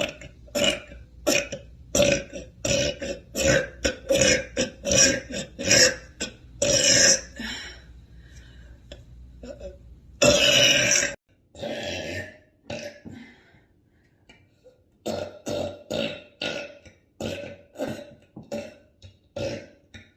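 A woman burping over and over: a quick run of short burps about two a second, a longer burp about ten seconds in, then after a short pause another quick run of short burps.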